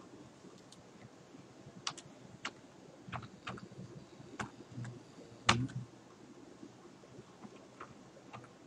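Typing on a computer keyboard: scattered, irregular keystrokes, with one much louder key strike about five and a half seconds in.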